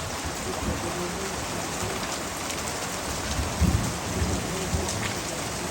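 Steady downpour of rain mixed with small hail pattering on the roof and surrounding surfaces, with scattered sharper ticks. A brief louder low thump comes a little past halfway.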